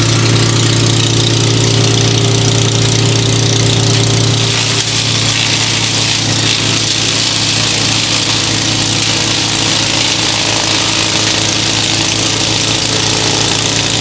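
Hansa wood chipper running steadily as it chips branches. About five seconds in, the engine's low hum drops a little under load, and the hissing chipping noise of chips blowing out of the chute grows.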